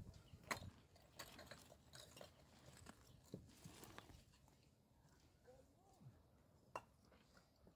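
Faint gritty crunches and scuffs of a sneaker stepping onto mortared foundation stones, busiest over the first few seconds, then a few isolated clicks with one sharper click near the end.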